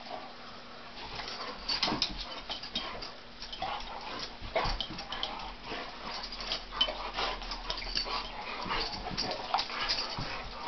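A Chinese shar pei and an American bulldog/boxer mix play-fighting: scuffling and shuffling throughout, with a few short whines.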